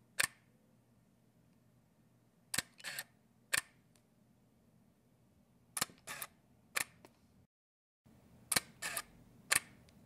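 Canon 5D DSLR shutter fired with the lens on and without the mirror: each shot is a quick cluster of three or four sharp clicks, about one shot every three seconds. The sound drops out completely for a moment about three quarters of the way through.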